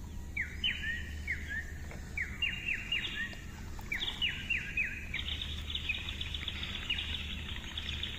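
Songbirds calling: a string of quick downward-sweeping chirps, then from about five seconds in a fast, continuous trill.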